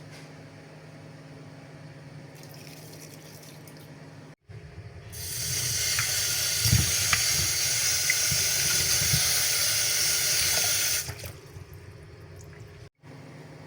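Water running from a tap into a sink for about six seconds, starting about five seconds in and then shut off, with a few low knocks in the basin. A steady low hum lies under it before and after.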